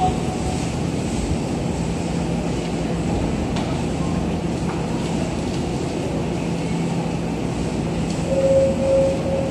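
Tokyo Metro 17000 series electric train creeping into the platform and coming to a stop within the first few seconds, then standing with a steady low hum. A short held tone sounds near the end.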